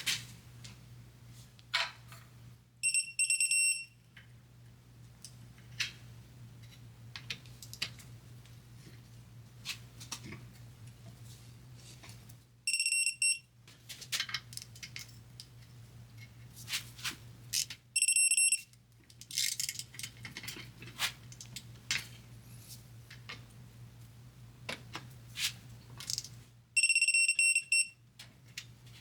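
Electronic beeping of a digital torque wrench. It comes in four bursts of rapid high beeps as bolts are brought up to the set torque, with sharp ratcheting clicks in between over a steady low hum.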